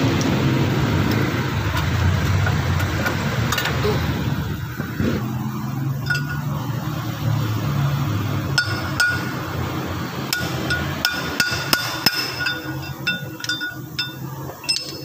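A steady low hum for the first few seconds, then from about eight seconds in a hammer striking a steel punch set in the bore of a front wheel hub and rotor: a dozen or so sharp metallic taps that ring after each blow.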